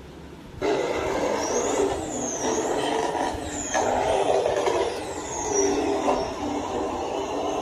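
Vehicle sound effect: a steady rushing engine and road noise that starts just over half a second in, with high whistling glides rising and falling above it.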